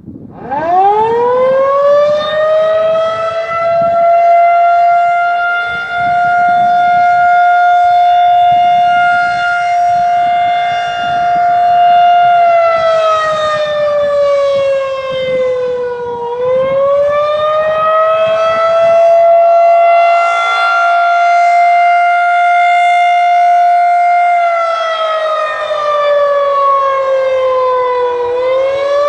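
Federal Signal 2001-130 rotating warning siren sounding the attack signal. It winds up from a standstill to a steady high howl and holds it about eight seconds, then drops in pitch for about four seconds and winds back up. The drop and rise comes twice.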